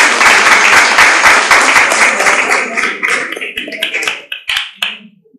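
Audience applauding, the clapping thinning out after about three seconds to a few last claps before it stops.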